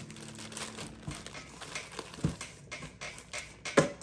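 Irregular soft knocks and clicks, the loudest one shortly before the end, with faint background music trailing off at the start.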